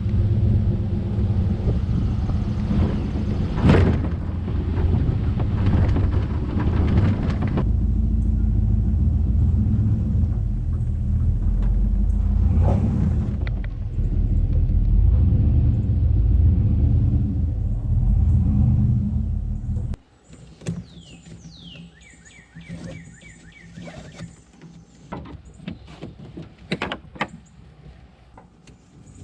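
Steady low rumble of a moving vehicle with a few knocks, cutting off suddenly about two-thirds of the way through. Then a much quieter stretch of birds chirping, with scattered clicks and knocks.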